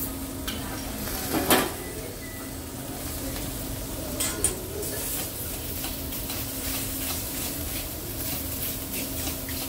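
Food sizzling on a hibachi griddle, with scattered metal clinks and a sharp clack about one and a half seconds in.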